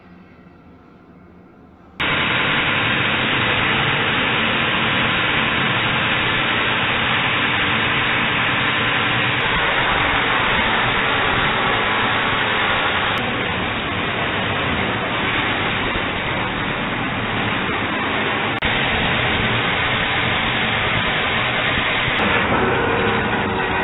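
Metal chop saw cutting through steel stock, a loud steady grinding that starts abruptly about two seconds in and runs on without a break.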